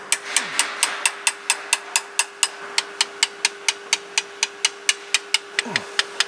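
Rapid, even hammer taps on a steel punch, about four or five ringing metallic strikes a second, driving an upper main bearing shell around the crankshaft journal into the block of a Toyota 5S-FE four-cylinder engine.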